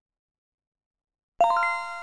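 Silence, then about a second and a half in a bright chime sound effect: several bell-like tones struck at once and fading away, the cue that marks the correct answer in a quiz.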